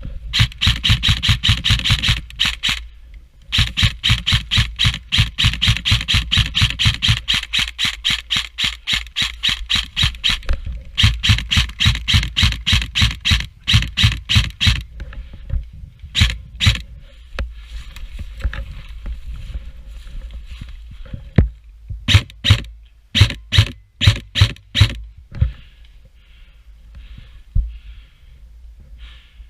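Airsoft gun firing on full auto: long rapid strings of sharp cracks, roughly a dozen shots a second, in bursts of a couple of seconds and then several seconds. After a pause come a few separate single and paired shots, including a quick run of about eight shots a little past halfway.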